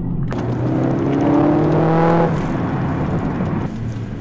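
Mercedes-AMG CLA45 S's turbocharged four-cylinder engine under hard acceleration, heard from inside the cabin. Its pitch climbs for about two seconds, then drops back. The occupants think the engine note is partly played through the car's speakers, making it sound exaggerated.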